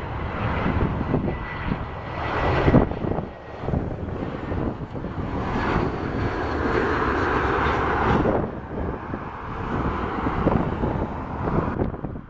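Airbus A320 jet airliner engines landing, a rushing jet noise with a thin steady whine in the first couple of seconds, loudest from about six to eight seconds in and then dropping away.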